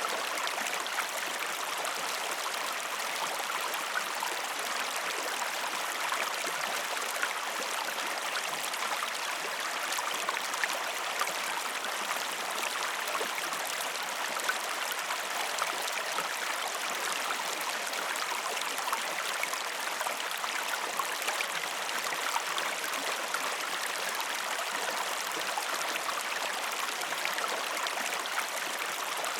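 Steady rush and gurgle of a flowing river, with fine bubbling splashes over the constant wash of water.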